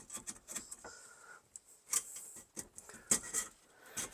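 Scattered light clicks and rubbing of the turn signal switch's wiring harness and plastic parts being fed out through the steering column, with sharper clicks about two and three seconds in.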